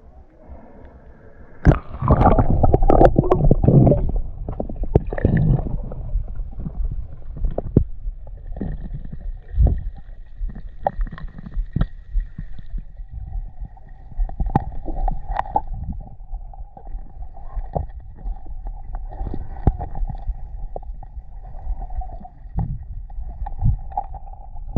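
Muffled underwater sound picked up by a camera in a waterproof housing: water gurgling and rumbling with scattered knocks and clicks. A loud burst of noise starts about two seconds in and lasts about two seconds. From about halfway a faint steady hum runs underneath.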